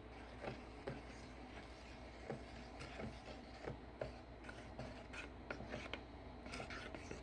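Paintbrush strokes on a wall while cutting in the edges: faint, irregular soft scraping.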